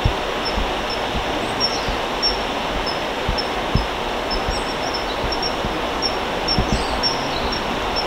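Steady rushing background noise with a bird's short high chirps repeating about twice a second over it, and a few low thumps.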